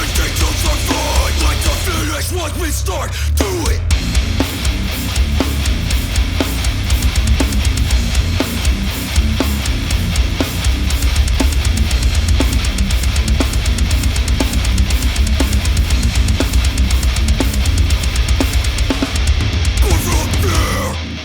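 Loud, harsh heavy music with distorted guitars, heavy bass and a steady drum beat, with no vocals. The level drops suddenly right at the end.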